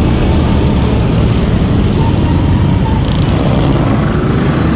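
Motorcycle and road traffic running close by, under heavy wind rumble on the microphone of a moving bicycle.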